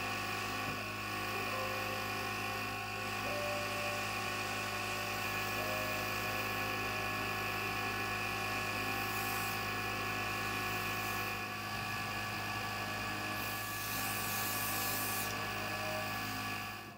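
Small airbrush compressor running with a steady motor hum. The airbrush sprays colour in hissing bursts, three times in the second half.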